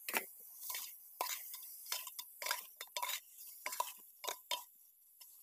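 A metal spoon stirring fish curry in an aluminium pot, knocking and scraping against its sides in an irregular run of a dozen or so short clinks, each with a brief ring.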